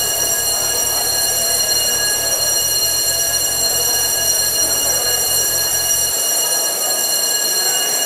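Electric school bell ringing for the change of class, one continuous high-pitched buzzing tone held without a break, over the noise of students pouring out of class.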